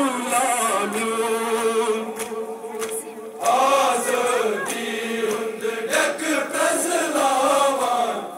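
Male voices chanting a Kashmiri noha, a Shia lament of Muharram mourning, in unison. They hold one long note, then start a new phrase about three and a half seconds in.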